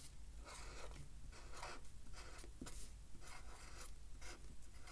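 Felt-tip pen writing letters on paper: a faint, quick series of short scratching strokes.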